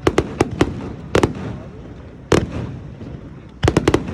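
Fireworks display shells bursting in quick, uneven succession: several sharp bangs in the first second, a single bang a little past two seconds, and a rapid cluster of about five near the end, each with an echoing tail.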